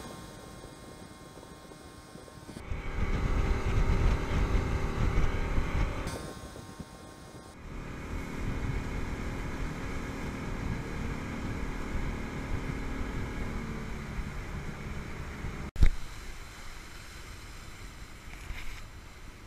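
Motorboat engine running steadily with the boat under way, with wind gusting on the microphone for a few seconds early on. A single sharp thump comes about three quarters of the way through.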